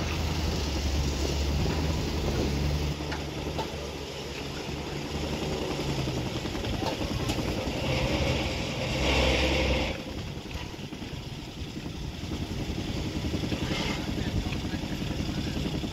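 Diesel engine of heavy construction machinery running steadily with a low hum. A louder rushing surge comes about eight seconds in and lasts about two seconds.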